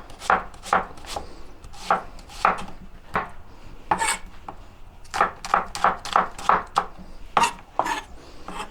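Kitchen knife slicing red onions on a cutting board: a series of sharp knife strokes in uneven runs, a few a second.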